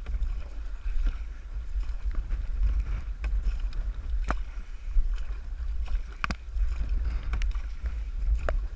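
Kayak paddles stroking and splashing in river water, with a sharp knock every second or two, over a steady low rumble of wind on the microphone.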